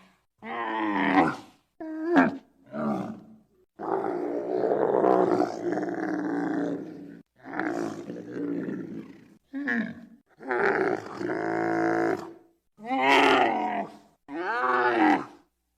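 Giraffe calls: a series of about nine separate pitched calls whose pitch bends up and down, most about a second long and one held for over three seconds near the middle, with silent gaps between them.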